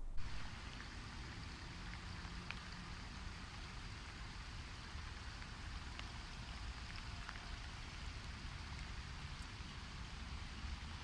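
Steady pattering of falling or splashing water, with scattered single drip-like ticks throughout.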